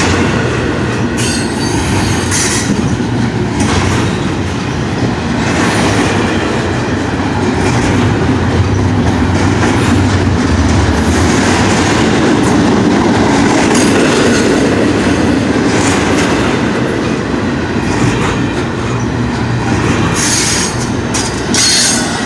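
Double-stack container well cars rolling past at close range: a steady rumble of steel wheels on rail with clacking over the joints, and brief high-pitched wheel squeals about a second or two in and again near the end.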